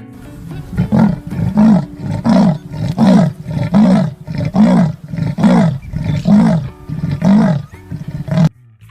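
Leopard calling: a series of about ten rough roars, a little under one a second, each rising and falling in pitch, cutting off suddenly near the end.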